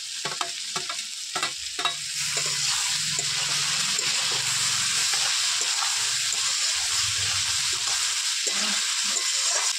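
Chopped tomatoes going into a metal kadai of potatoes and onions frying in hot oil, then stirred with a metal spatula: sizzling, with the spatula clicking and scraping against the pan. The sizzle grows louder about two seconds in.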